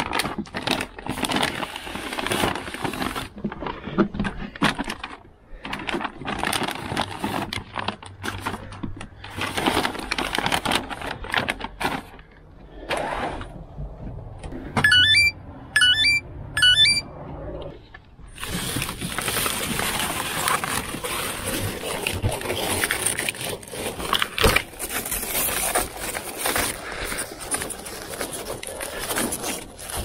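Paper grocery bags rustling as they are handled, then three short rising electronic chirps about a second apart from a phone's scanner app as each bag's label is scanned. After that comes steady rustling handling noise as plastic-wrapped cases of water are carried.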